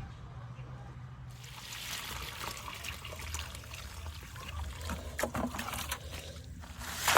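Water pouring and trickling from a bucket into a post hole onto concrete mix, a steady splashing hiss that starts about a second in. A sharp knock comes near the end.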